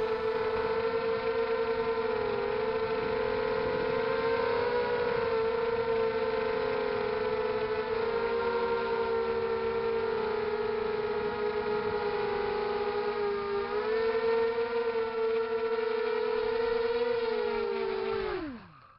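Whine of the ZMR250 quadcopter's Emax 2300kv brushless motors and propellers, several close tones wavering as the motors change speed, then sliding steeply down in pitch and stopping near the end as the motors spin down.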